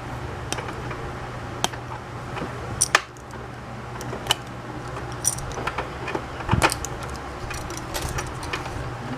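Scattered light clicks and rattles of a toy cash register set's plastic pieces and play money being handled and unpacked, over a steady low hum.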